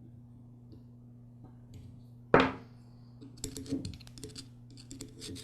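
A sharp knock of metal on metal, then rapid bursts of scratching as a small tool scrapes and picks at a lawn mower carburetor's base to work the bowl gasket free. A faint steady hum runs underneath.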